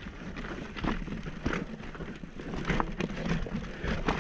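Mountain bike rattling over loose stone slabs, with irregular sharp knocks as the wheels and frame hit rocks.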